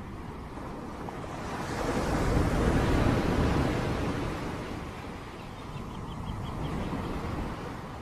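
Ocean surf: a wave breaks and washes in, building to its loudest about two and a half to three seconds in and then fading, followed by a smaller surge near the end.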